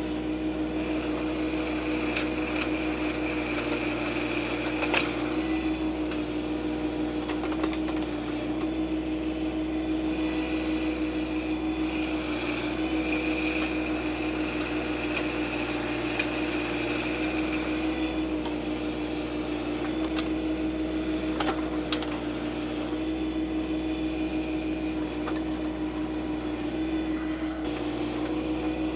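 John Deere 2025R compact tractor's three-cylinder diesel engine running at a steady speed while the backhoe digs, with a higher whine coming and going over it and a few faint knocks.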